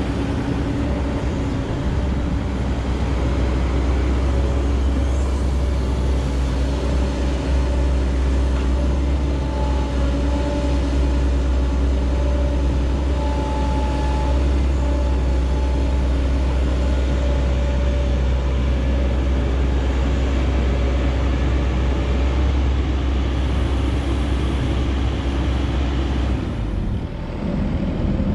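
Heavy diesel earthmoving machinery running steadily with a deep, continuous engine rumble; the low rumble drops away near the end.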